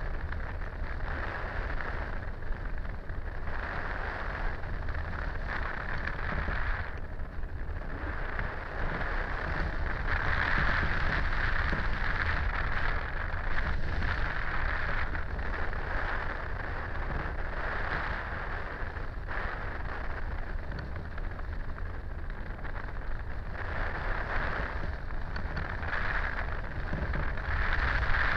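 Rushing wind on the microphone of a camera mounted on a hang glider in flight, a steady low rumble with a hiss that swells and eases as the airspeed changes.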